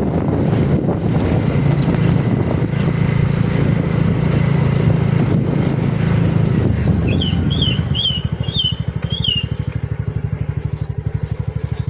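A motor vehicle engine running with a dense low rumble; about seven seconds in it settles into a steady, rapid, even throb. A short run of high chirps sounds over it.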